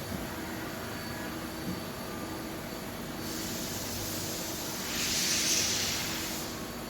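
Nakamura-Tome WT 150 CNC lathe running with a steady hum. About three seconds in, a hiss of spray or air starts, grows loudest around five to six seconds, then eases off.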